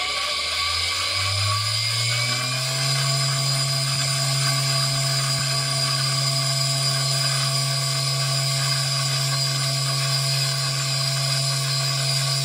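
Benchtop T.K. Homo Disper high-speed disperser's motor speeding up, its pitch rising over about the first three seconds, then running steady.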